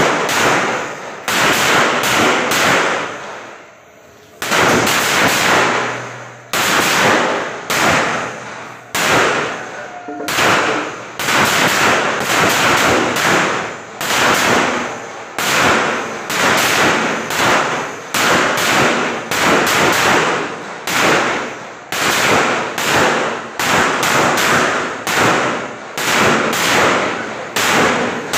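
Strings of petasan firecrackers going off in rapid, continuous runs of sharp bangs, with a short lull about four seconds in before the popping starts again.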